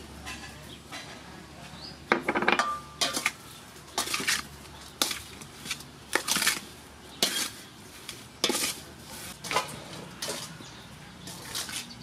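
Wooden spoon tossing boiled pork skin pieces with chicken powder in a stainless steel bowl: a series of short scrapes and knocks against the metal, about one or two a second, starting about two seconds in.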